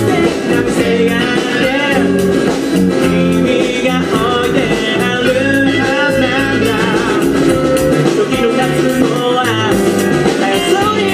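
A rock band playing live: a man singing with acoustic guitar, backed by electric guitar, bass and drums keeping a steady beat.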